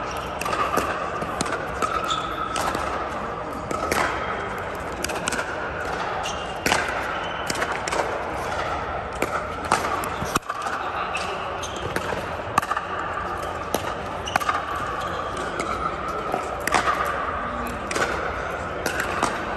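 Pickleball paddles popping against a hard plastic ball, with the ball bouncing on the court, in sharp clicks at irregular intervals from this and neighbouring courts, over a steady background hum.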